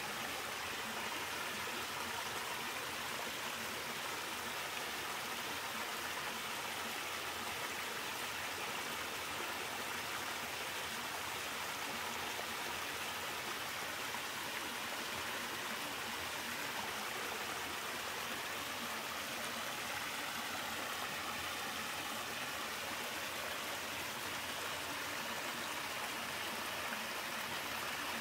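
Three-tiered waterfall in a mountain valley stream: a steady rush of falling water.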